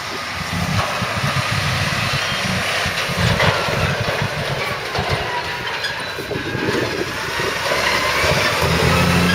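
Heavy diesel farm machinery running at silage harvesting: a steady engine drone with mechanical clatter, and a faint whine that rises slowly in pitch near the end as the machinery comes closer and louder.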